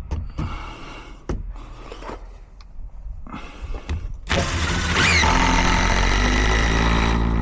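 A sharp knock, then about four seconds in a power drill starts and runs steadily to the end, driving a screw, with a brief rising whine as it speeds up.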